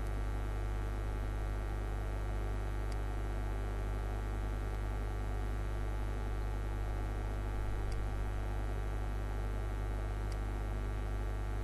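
Steady electrical mains hum with a stack of overtones, unchanging throughout, with a few faint ticks.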